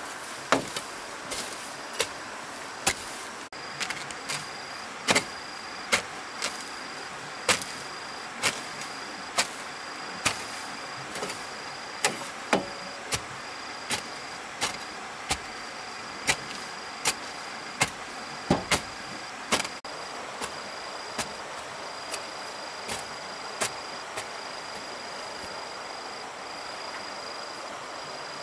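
Repeated sharp blows of a hand tool, about one a second, growing sparse in the last third. A faint, steady, high pulsing tone sounds behind them.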